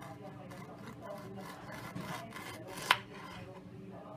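Kitchen food preparation: a run of repeated rasping, scraping strokes, with one sharp knock about three seconds in.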